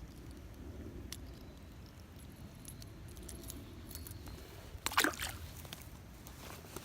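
Faint handling noise over a low rumble, with a few light clicks, then a short burst of metallic jangling clicks about five seconds in.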